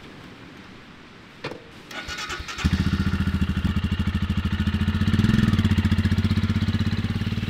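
Royal Enfield Scram 411 motorcycle's single-cylinder engine starting from cold after a night parked at camp: a click about a second and a half in, a brief turn of the electric starter, then it catches about two and a half seconds in and settles into a loud, steady pulsing idle, swelling slightly once around five seconds.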